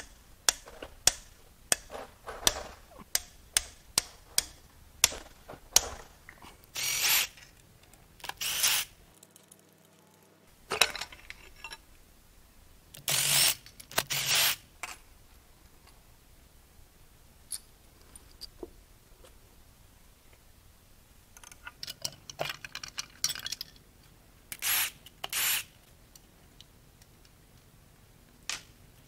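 Hand ratchet turning connecting-rod cap bolts, a run of sharp clicks about two a second, then a cordless power driver spinning bolts out in short runs of about half a second to a second, mostly in pairs.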